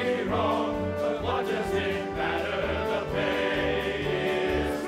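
A choir singing a musical-theatre ensemble number over an instrumental backing with a moving bass line.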